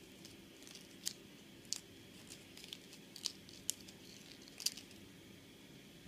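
Folded paper crinkling and creasing between the fingers as the origami parrot's head is outside-reverse-folded: a handful of short, sharp crackles at irregular moments over a faint steady hum.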